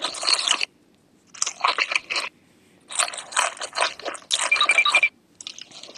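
Close-miked ASMR crunching and chewing of deep-fried, battered shrimp, in about five bursts with short pauses between them.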